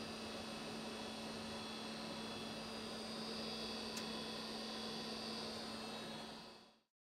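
Steady electrical hum over a faint hiss, with one brief click about four seconds in; the sound fades out to silence just before the end.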